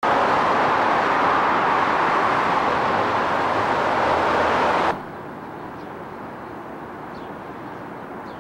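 Steady road and wind noise inside a moving vehicle, cutting off abruptly about five seconds in to much quieter outdoor ambience with a few faint chirps.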